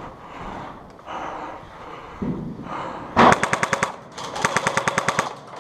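Airsoft gun firing two rapid full-auto bursts, the first just over three seconds in and the second about a second later, each a fast rattle of shots at roughly a dozen a second.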